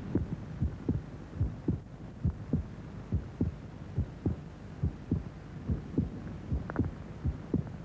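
Heartbeat sound effect: a steady run of low, evenly spaced thumps, about two and a half a second, over a faint steady low hum.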